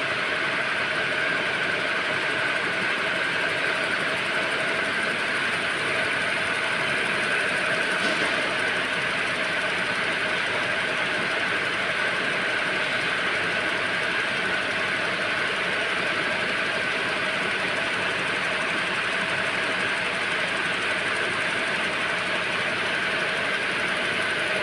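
Needle loom machines running at speed while weaving belt webbing: steady mechanical noise with constant high tones and no change in pace.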